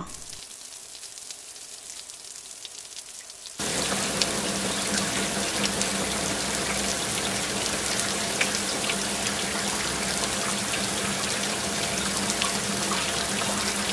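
Heavy rain pouring onto a swimming pool and its paved deck: a dense, steady hiss flecked with small splashes of drops, over a low steady hum. It is fainter at first, then jumps to full loudness about three and a half seconds in.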